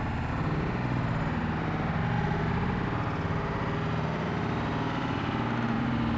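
A steady engine-like drone, even in level throughout, with no speech over it.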